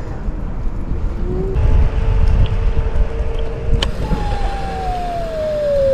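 Electric scooter hub motor whining under wind rumble on the microphone while riding. About two-thirds of the way in, the whine gets louder and falls steadily in pitch as the scooter slows from its top speed of about 16 mph.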